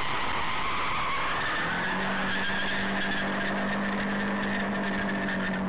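Car driving, with road and engine noise heard from inside the vehicle. About two seconds in, a steady droning tone joins and holds unchanged.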